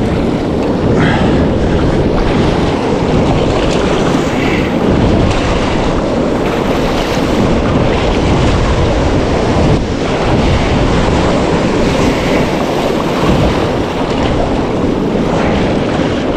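Surf breaking on the shore with steady wind buffeting the microphone, a loud continuous rush.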